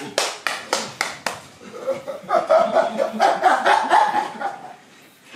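Quick claps or slaps, about three or four a second, for the first second and a half, then a couple of seconds of breathy, quickly pulsing laughter-like sounds that fade near the end.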